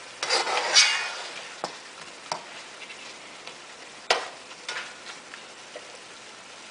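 Metal spoon stirring catfish pieces in curry sauce in a metal pot, scraping hardest in the first second, then a few sharp knocks of the spoon on the pot. A steady sizzle of frying runs underneath: the pot is hot.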